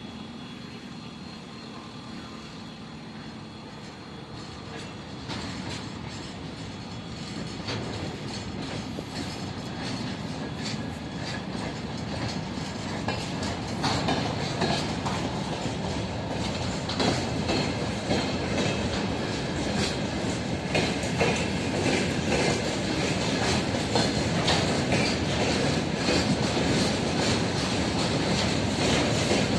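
A ChME3 diesel shunting locomotive running along the track and growing steadily louder as it approaches. In the second half its wheels clack sharply over rail joints.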